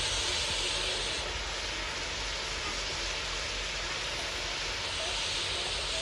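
Fish pieces deep-frying in hot oil in a large pot: a steady sizzle.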